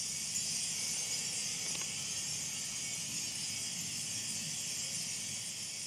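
Clusters of small metal chimes hanging from a metal sound-installation tree, tinkling together in a dense, steady high-pitched shimmer.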